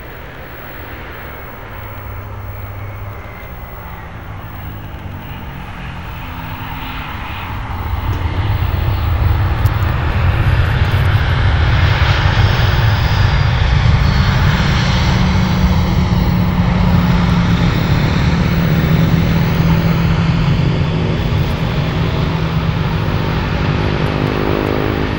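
Airbus A319 twin jet engines (CFM56) on a landing. The jet roar grows, jumps louder about eight seconds in around touchdown and holds loud with a low drone under it. Near the end it winds down in falling tones as the airliner rolls out.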